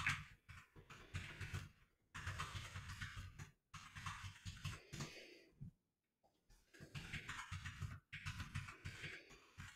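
Typing on a computer keyboard: runs of rapid key clicks in several bursts with short pauses between them.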